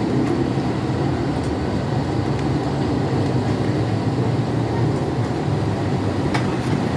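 A motor running steadily with a low rumble.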